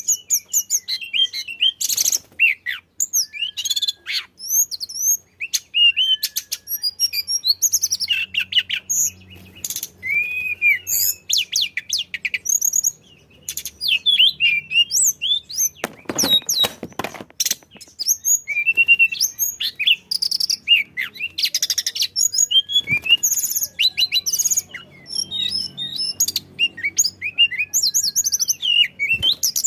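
A tledekan songbird singing a busy, continuous stream of short chirps, slurred whistles and fast trills, with a louder rattling run about sixteen seconds in. This is the kind of strong song played to coax other cage birds into singing.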